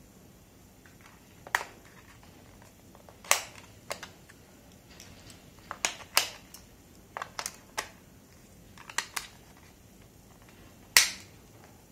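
Plastic clicks and rattles from a handheld keyboard remote's battery compartment as two AA batteries are fitted and the cover is slid back on: about a dozen short, sharp clicks at irregular intervals, the loudest near the end.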